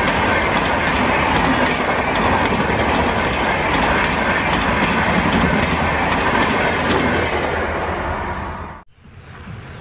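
An express train of red LHB passenger coaches rushes past at speed: a steady rumble and rush with rapid clicks of wheels over rail joints. It fades as the last coach goes by about eight seconds in, then cuts off abruptly to a much quieter hiss.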